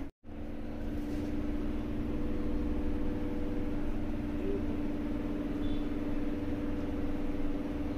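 A steady mechanical hum with one constant tone over a low rumble, after a momentary dropout at the very start.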